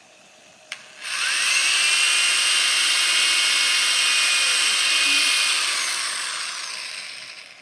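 Electric power drill, a click and then the motor spinning up about a second in, running at a steady high whine for several seconds, then winding down and fading near the end.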